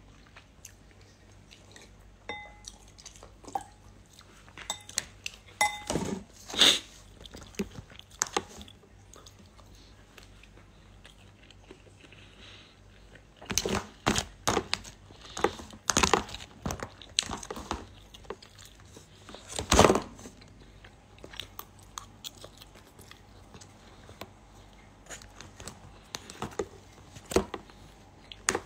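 A person biting and chewing crispy pork belly (moo krob) close to the phone microphone: scattered sharp crunches, the loudest about six seconds in and in a run between about fourteen and twenty seconds, with lighter clicks and mouth sounds between.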